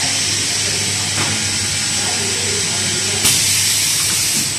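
Production-line machinery giving off a loud, steady hiss of air. The hiss grows louder and sharper for its last second and then stops near the end. There is a faint click about a second in, and a steady low hum from the conveyor drive underneath.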